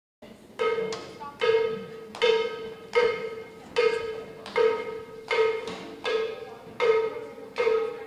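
Band music starting up: a short pitched note stabbed about every three-quarters of a second, each dying away before the next, in a steady mambo pulse.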